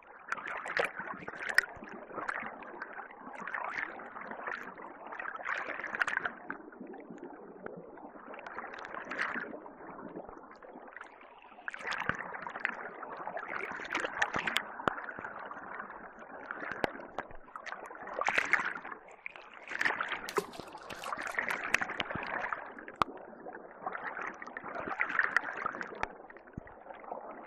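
Water splashing and gurgling in repeated swells every couple of seconds, with many small drips and clicks.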